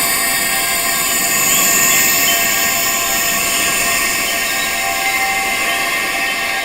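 Wind chimes ringing in many overlapping sustained tones, some very high-pitched, without a break.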